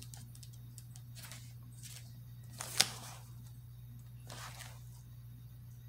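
Faint rustling of paper and cards being handled, with one sharp click about three seconds in, over a steady low electrical hum.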